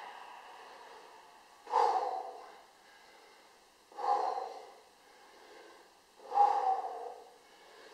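A man breathing hard to catch his breath after heavy exercise: three loud, heavy breaths about two seconds apart.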